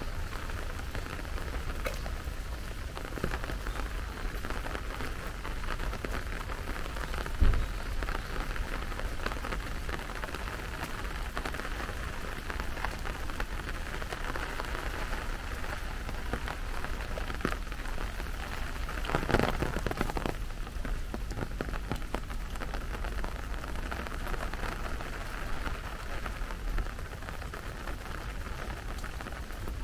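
Steady rain falling, with individual drops ticking through it. A low thump about seven seconds in, and a brief louder rush about two-thirds of the way through.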